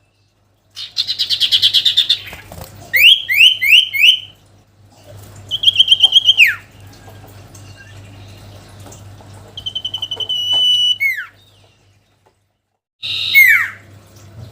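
Common iora (cipow) singing loud whistled phrases: a fast trill, three quick up-sweeping notes, then long held whistles that break into steep downward slurs, with short pauses between phrases.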